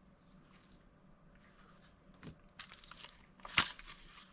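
Plastic toy phone and its snap-on plastic covers being handled: faint rustling and a few small plastic clicks, with one sharper click a little past three seconds in.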